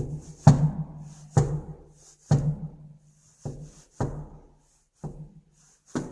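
Heavy, irregular pounding on a door, about eight blows in six seconds, each leaving a short low booming ring.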